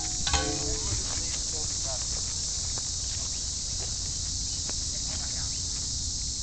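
A steady, high chirring chorus of insects such as crickets fills the woods throughout. A short sharp click sounds just after the start, and faint distant voices come through now and then.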